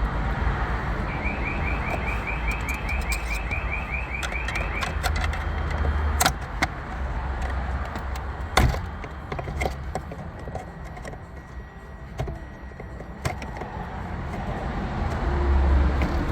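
Sharp clicks and knocks of a hand tool on plastic and metal as the spring pin on the gear shifter's small black lock piece is squeezed together to free it, over a steady low rumble. A fast run of short high chirps, about five a second, sounds for a few seconds near the start.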